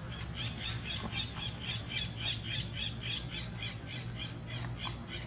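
A rapid, even series of short high-pitched animal calls, about four a second, that stops near the end.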